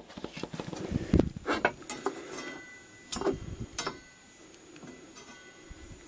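Light knocks and clicks of tools being handled on the table saw, with a low thump about a second in. The handling turns quieter after about four seconds.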